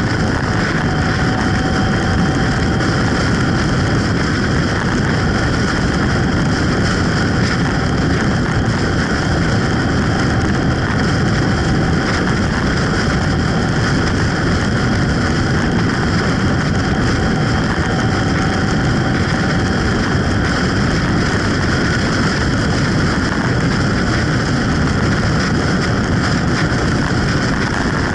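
Steady rush of wind, engine and tyre noise from a motorcycle cruising at road speed, heard through a camera mounted on the moving bike. The level holds even, with no gear changes or sudden sounds standing out.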